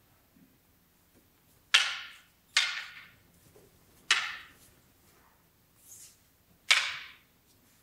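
Four sharp clacks of a wooden bokken striking a wooden jo staff, each trailing a short echo off the hall. The first two come close together, the last two more widely spaced.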